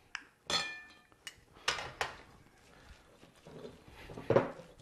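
A metal spoon clinking against a jar and a glass mixing bowl as mayonnaise is scooped out and knocked off into the bowl: several sharp, briefly ringing clinks in the first two seconds. Near the end comes a louder scrape as the mixture is stirred in the bowl.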